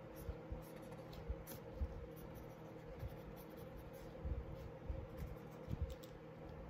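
Faint pencil scratching on sketch paper in short strokes, with a few soft knocks about four to six seconds in.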